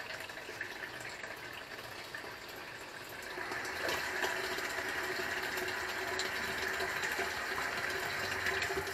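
Water from a garden hose running into the plastic water tank of an ECC230T HHO engine-decarbonising machine, a steady rush of filling water that gets louder about three seconds in.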